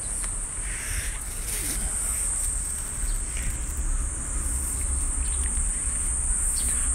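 Cicadas singing in a steady high-pitched chorus that does not let up, over a low rumble.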